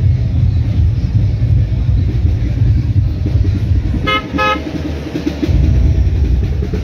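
Slow street traffic rumbling past close by. About four seconds in, a vehicle horn gives two quick toots.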